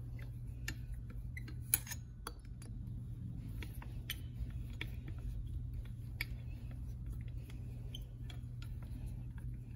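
A driver turning out the cylinder screws of a two-stroke engine: scattered light metallic clicks and ticks as the tool works the screws, the loudest a sharp click just under two seconds in. A steady low hum runs underneath.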